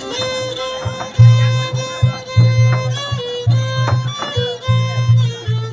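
Background music: a held, gliding melody line over a heavy low beat that comes in strongly about a second in.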